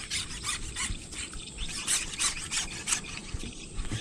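Carbon sections of a telescopic fishing pole rubbing and squeaking in the hands: a quick, uneven series of short, high scrapes, about three a second.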